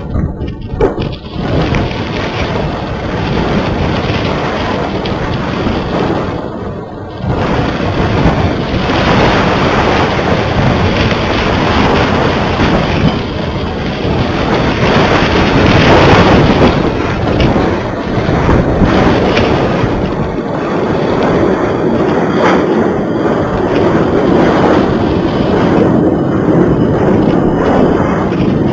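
Wind buffeting the microphone of a small camera carried aloft on a kite: a loud, gusting rumble and hiss that dips briefly about seven seconds in.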